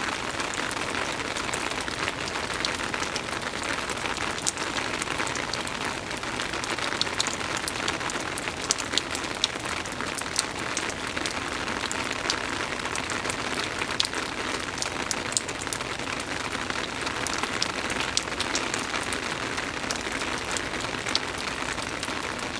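Rain falling steadily on a wet wooden deck: a constant hiss with frequent sharp ticks of single drops hitting the boards and the standing water on them.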